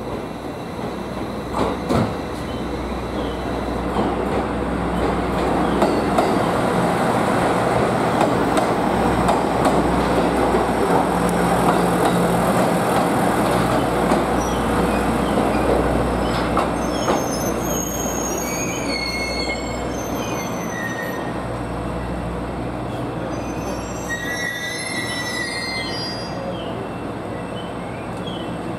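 JR East GV-E400 diesel-electric railcar running through the station, its engine giving a low steady hum under the rumble of wheels on the rails, which swells as it passes. From a little past halfway, short high squeals come from the wheels on the rails.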